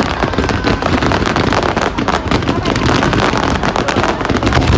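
Fireworks going off in quick succession: dense crackling and bangs with no break.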